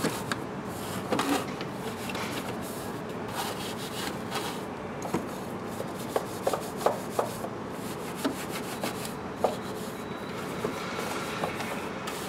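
Bristles of a long-handled EZ Detail brush scrubbing degreaser into greasy grime around an engine. The scrubbing is steady and scratchy, with scattered light taps of the brush against engine parts.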